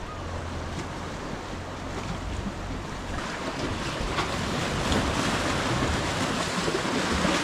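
Strong sea wind buffeting the microphone over the steady wash of waves on the shore, growing a little louder about three seconds in.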